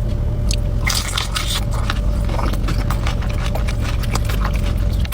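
Person biting into and chewing chicken wings, a run of short sharp crunching clicks that picks up about a second in.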